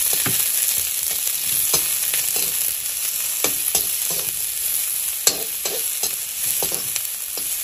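Sliced onions sizzling in a little hot oil in a metal kadai, stirred with a perforated metal spatula that scrapes and clinks against the pan a dozen or so times. The sharpest knock comes about five seconds in.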